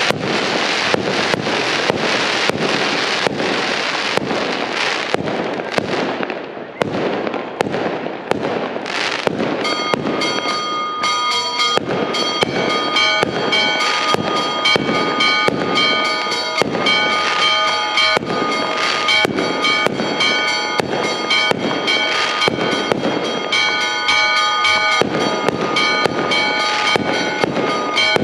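Fireworks display: a dense run of hissing launches and sharp cracks. From about ten seconds in, church bells ring out over continuing rapid firecracker bangs.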